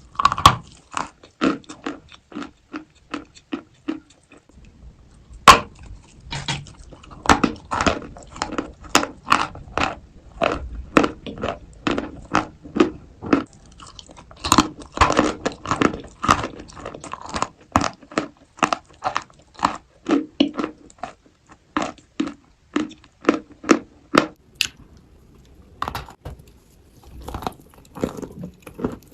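Close-up biting and chewing of dry, powdery Turkestan white edible clay, in dense irregular crunches. There is a short pause about four seconds in and another near the end.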